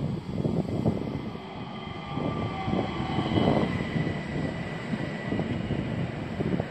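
ÖBB Talent electric multiple unit running past along the platform: steel wheels rumbling and knocking over the rails, with a faint high whine over it.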